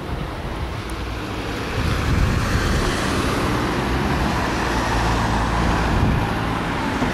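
Road traffic: a car passing on the road, louder from about two seconds in.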